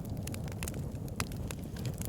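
Campfire burning with a steady low rumble and frequent small crackles and pops from the burning wood.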